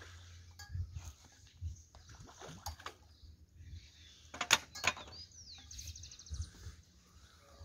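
Scuffs and knocks of a person climbing over a metal pier railing with a landing net, with light splashing of lake water; two sharp knocks about four and a half seconds in are the loudest. A short run of rapid clicks follows just after.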